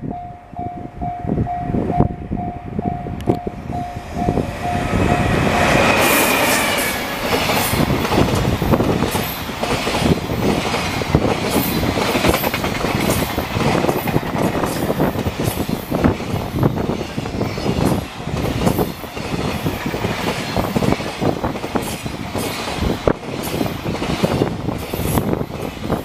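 A level crossing warning bell ringing in steady pulses as a JR Freight train approaches. About six seconds in, the train, behind a red electric locomotive, rushes past at speed, and its wagons' wheels clatter over the rail joints in a fast, continuous rhythm.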